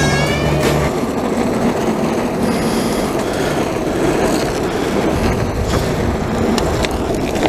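Skateboard wheels rolling over pavement, a steady rumble with a few sharp clicks in the second half, under a homemade board whose deck is a flat-screen TV. Guitar music ends about a second in.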